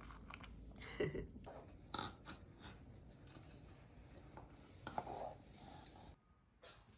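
Quiet handling sounds of a baby tipping a snack bowl of puffed baby snacks onto the floor: a few soft knocks and rattles, with a brief baby vocal sound about a second in.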